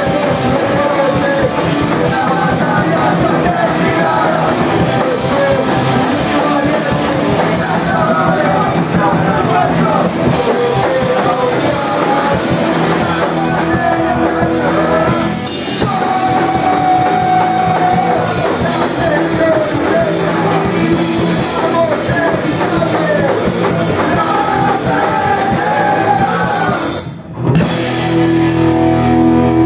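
Rock band playing with vocals, drums and guitars. About two seconds before the end the band cuts out sharply, then comes back in on long held notes.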